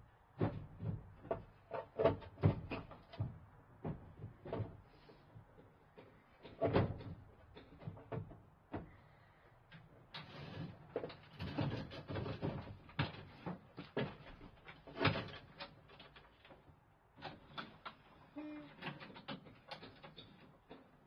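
Irregular knocks and clunks of a petrol push mower and other gear being shifted in the back of a van, as the mower is freed and pulled out onto wooden scaffold-board ramps.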